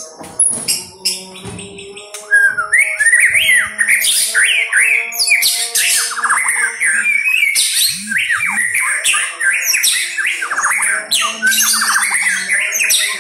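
Caged white-rumped shama singing a fast, varied song of quick whistled sweeps and chattering notes, sparse at first and then continuous from about two seconds in.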